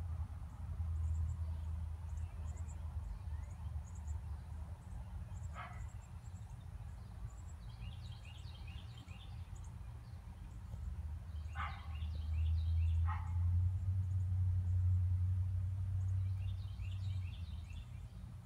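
A low, steady rumble that grows louder about two-thirds of the way through. Over it, small birds give a few short chirps and several bursts of quick, high trills.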